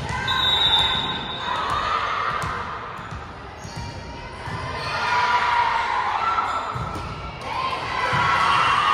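A basketball bouncing on a gym floor during a game, with shouting voices rising and falling over it.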